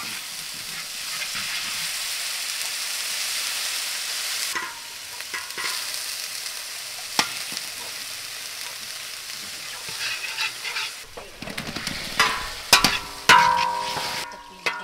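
Liquid poured into a hot wok onto frying spice paste, sizzling loudly for the first four seconds or so, then sizzling more softly with small pops. Near the end, a metal ladle clanks and scrapes against the wok as chunks of food are stirred, the wok ringing after each knock.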